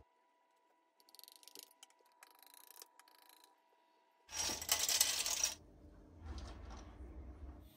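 Plastic dough scraper cutting lines into semolina batter in a glass baking dish, with soft scrapes against the glass and one louder scrape lasting about a second around four seconds in.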